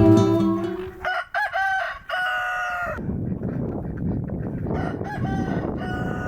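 A rooster crowing twice: a loud crow about a second in, ending on a long held note, then a fainter crow near the end, over steady background noise. Guitar music fades out at the start.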